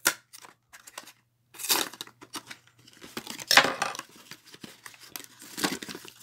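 Cardboard box and paper wrapping of a Kinder Joy egg being cut and torn open by hand: several bursts of tearing and crinkling with small clicks, the loudest about three and a half seconds in.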